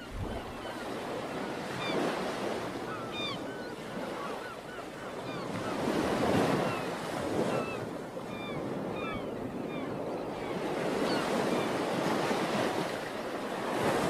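Sea waves washing over a rocky shore, swelling and falling every few seconds, with wind on the microphone. Short high chirping calls sound over the surf.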